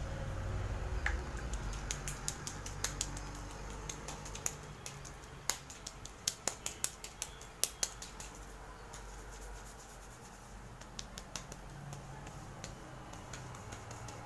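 Fingers massaging coconut-oil-soaked hair against the scalp, making wet, sticky clicking and smacking sounds ('chap chap') in irregular clusters, thickest in the middle and again near the end.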